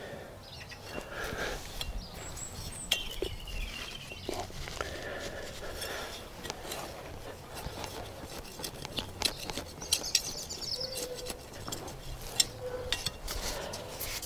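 A garden trowel and hands working soil while seedlings are planted out: scattered light scrapes, clicks and knocks throughout. Birds chirp briefly a few times in the background.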